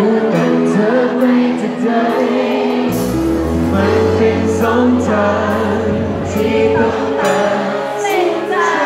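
Live pop band: a male singer sings through a microphone over keyboard, electric guitars and cymbals. A deep bass note is held from about three seconds in until about seven.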